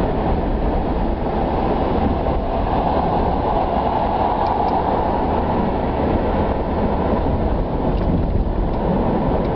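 Steady road and engine noise inside a moving car's cabin, an even rumble with no distinct events.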